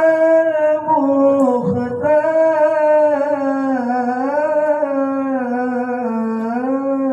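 One voice singing a sholawat, drawing out a single syllable in a long, slowly wavering melismatic line that steps gradually lower. There is a brief break in the voice about a second and a half in.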